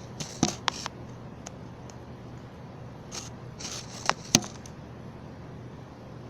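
A few sharp taps and knocks, in a cluster near the start and again about four seconds in, with short scraping rustles between them over a faint steady low hum: handling noise from objects being moved about.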